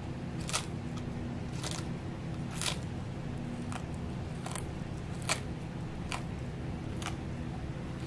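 Sulcata tortoise biting into crisp lettuce leaves: a sharp crunch about once a second, over a steady low hum.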